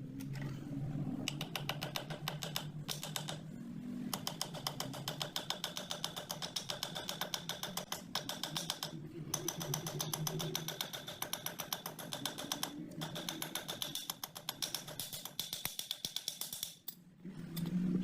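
A mechanism running with a fast, even clicking over a low hum, stopping briefly a few times.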